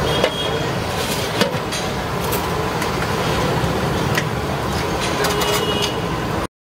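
Steady street traffic rumble, with a few short light clinks of steel plates and a ladle. The sound cuts out for a moment near the end.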